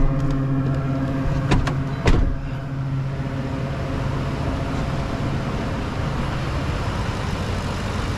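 A 2010 Ford F-150's 5.4-litre V8 idling steadily with its spark plugs and coil packs back in, running well despite having been diagnosed as needing a new engine. Two sharp knocks come about one and a half and two seconds in.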